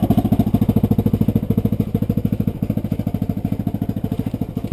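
Yamaha Rhino side-by-side's single-cylinder engine idling with a steady, even pulse of about ten beats a second.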